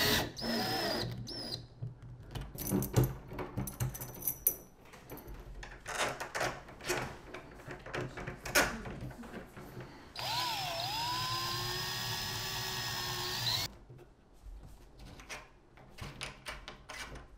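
Cordless drill-driver driving the screws of a door lever handle and lock: a short run at the start and a steady run of about three and a half seconds later on. Between them, clicks and knocks of the metal handle and lock parts being handled.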